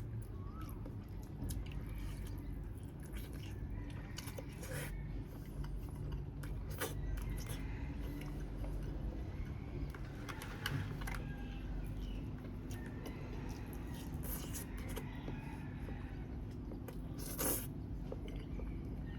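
A person chewing and biting grilled chicken close to the microphone, with scattered wet clicks of mouth sounds and one sharper click near the end.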